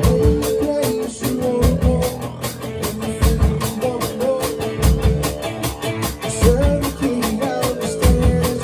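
A rock band playing live: a drum kit keeps a steady beat under electric guitar and keyboards.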